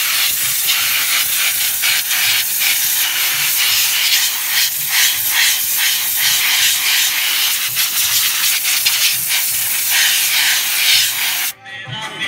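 High-pressure water jet hissing as it sprays a motorcycle during washing, steady with a fluctuating spatter. It cuts off abruptly near the end.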